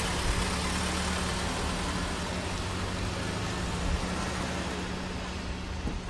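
Mercedes hearse driving past and away over open tarmac: a steady low engine hum with tyre and road hiss, fading slowly as it pulls off.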